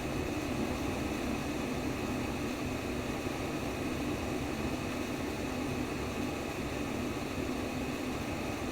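Steady white noise for baby sleep: an even, unchanging rushing hiss with most of its weight in a deep, low-middle rumble.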